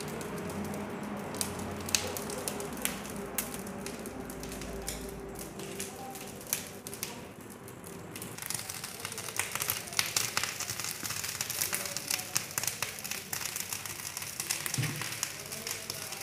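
Fire in a clay tandoor oven crackling and popping as sparks shoot up from it. About halfway through, the crackle turns denser and louder.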